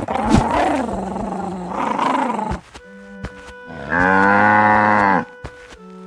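A cow mooing: one long, strongly pitched moo lasting about a second, about four seconds in, over light background music. Before it, for the first two and a half seconds, a rougher, noisier animal call.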